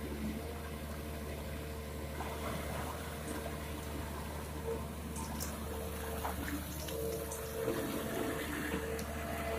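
Komatsu PC200-6 excavator running with a steady diesel hum and a steady whine, while river water splashes and pours off its bucket of gravel as it is lifted out of the river and swung over the truck.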